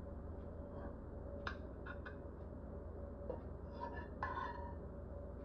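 A few faint clicks and light knocks on a ceramic plate as boiled green bananas are set down on it, over a steady low hum.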